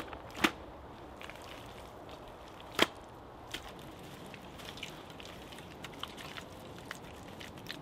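Three sharp knocks from digging and working clay soil by hand, two close together at the start and one about three seconds in, followed by fainter ticks and rustling.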